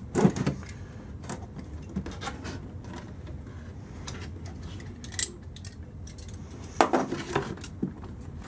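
Cardboard box of a remote-control truck being opened and its contents handled: scattered knocks, taps and scrapes, with a cluster just after the start and another about seven seconds in.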